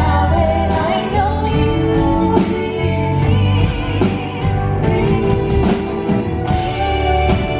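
A man and a woman singing a Broadway show-tune duet into handheld microphones, backed by a live band with piano and drums.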